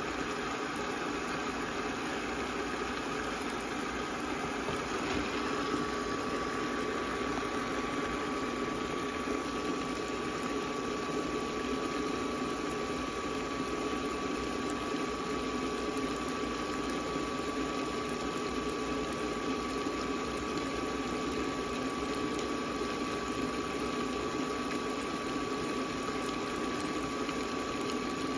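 Gyoza steaming and frying in a covered pan on an induction cooktop: a steady bubbling sizzle over the hum of the hob. A thin, steady high-pitched tone joins about five seconds in.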